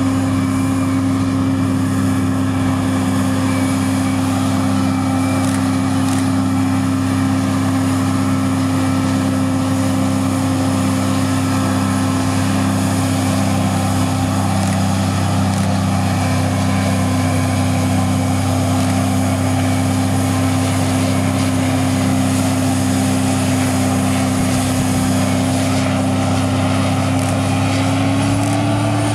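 John Deere 8800i self-propelled forage harvester working under load, chopping whole-crop rye, with the engine and chopper giving a steady, even drone, mixed with the tractor and trailer running alongside. The pitch rises slightly near the end.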